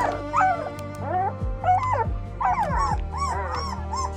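Two-week-old German Shepherd puppies whining and squealing, several high cries overlapping and rising and falling without a break: the litter fussing while their mother is away.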